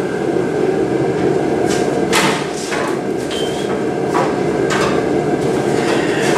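A few sharp knocks, like hammer strikes, over a steady loud noise.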